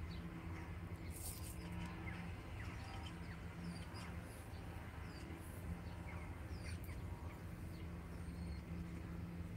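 Small birds chirping outdoors in short, scattered calls, over a steady low hum.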